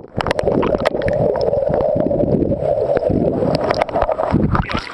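Water churning and gurgling around a camera held underwater in a swimming pool as swimmers move past it, with many short knocks through it.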